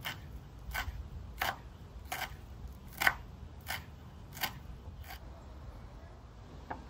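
Kitchen knife chopping on a wooden cutting board: about eight sharp, unhurried strokes, a little under one and a half a second, then a pause and one last stroke near the end.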